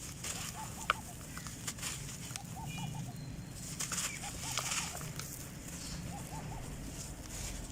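Red dirt shapes crumbling, a grainy crunch in bursts, with a bird chirping in short runs of three or four notes in the background.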